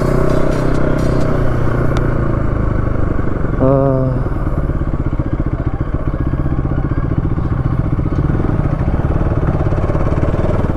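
Motorcycle engine running steadily at low speed as the bike rolls slowly along a rough dirt road. A short wavering pitched sound, like a call or horn, comes just under four seconds in.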